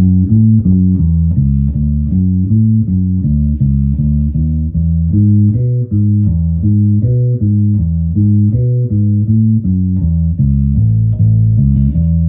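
Birdsong Hy5 electric bass strung with D'Addario Chromes flatwound strings, played through both pickups with the tone knob rolled back to about half, giving a rounded tone. It plays a repeated lick of plucked low notes, about four a second, ending on a held low note near the end.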